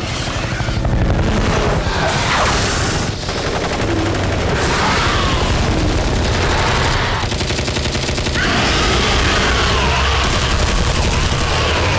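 Film battle sound effects: helicopter gunships' machine guns firing in long, rapid bursts over the low throb of their rotors, with a brief lull about three seconds in.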